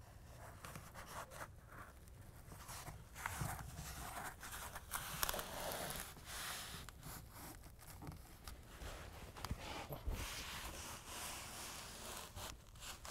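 Hands rubbing and pressing a molded carpet bed liner panel onto a pickup bed's sidewall and its hook-and-loop fasteners: faint, irregular rustling and scraping of carpet.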